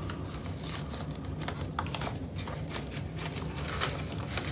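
Paper banknotes and the plastic pockets and pages of a cash-envelope binder being handled, giving scattered light rustles, crinkles and clicks over a faint steady low hum.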